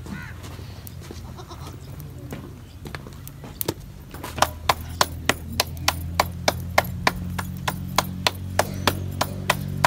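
Flatbread dough being slapped flat between a woman's palms: sharp, regular pats about three a second, starting about four seconds in. A short bleat comes right at the start.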